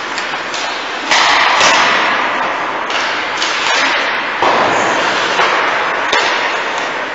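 Ice hockey play heard at rink-side: skate blades scraping and carving the ice in hissing surges, with sharp clicks and knocks of sticks and puck.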